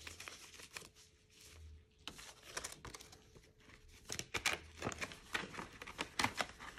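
Paper banknotes and clear plastic binder pockets rustling and crinkling as they are handled, in short scattered clicks and rustles that grow busier about two seconds in.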